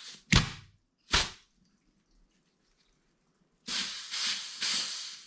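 Compressed-air blow gun blasting into a 2019 Husqvarna TE150 front brake caliper to force out a piston that is seized by wear and corrosion. Three short blasts come in the first second or so, then a longer hiss of air starts about three and a half seconds in and lasts about a second and a half.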